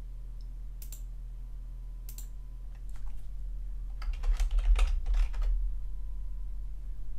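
Two mouse clicks, then a quick run of keystrokes on a computer keyboard as a short word is typed, over a steady low hum.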